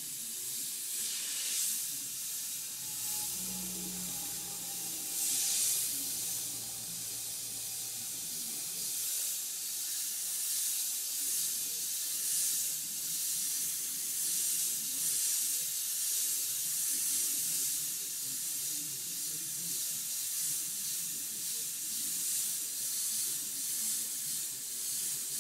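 Airbrush spraying paint, a steady high-pitched hiss of air from the nozzle that rises and falls in strength every few seconds.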